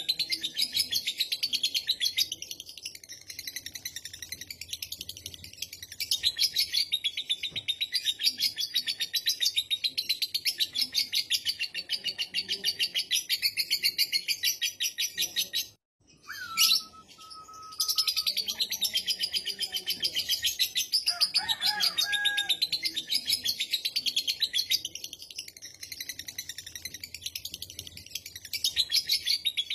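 Lovebird's long 'ngekek' song: a continuous, very fast chattering run of high notes. It breaks off briefly about halfway through, and a short whistled note falling in pitch follows before the chattering resumes.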